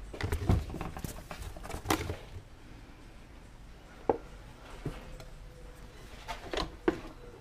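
Handling noise of rummaging through junk: scattered light knocks and rustles as cardboard boxes and discarded electronics are moved.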